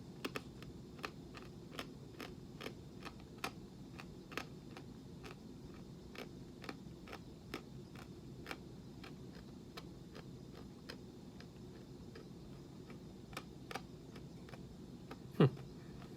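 A roasted coffee bean being crunched between the teeth: a run of sharp cracks, one or two a second, thinning out as it is chewed down. A brief falling hum near the end.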